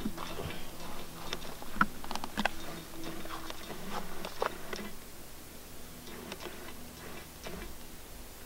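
Handling noise: scattered light clicks and knocks, mostly in the first half, as the camera is picked up and moved close to the easel, over a faint steady hum.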